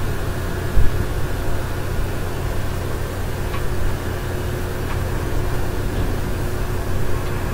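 Westinghouse Portatape tube reel-to-reel tape recorder running, a steady low hum with a faint steady whine over it. One knock about a second in.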